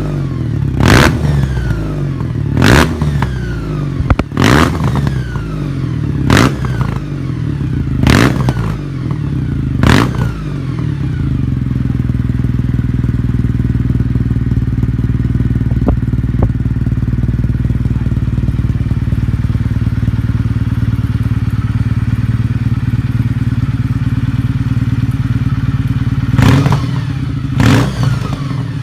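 Kawasaki W800 air-cooled parallel-twin motorcycle engine through an aftermarket stainless steel exhaust, blipped by throttle about every two seconds, six times. It then settles into a steady idle, and is blipped twice more near the end.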